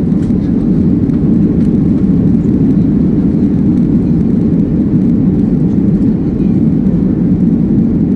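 Airplane taking off: a loud, steady low noise of engines and rushing air, with no change in pitch or level.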